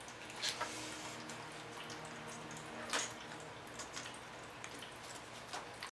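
Faint steady room hiss and low hum with a few soft clicks, typical of handling computer hardware on a workbench.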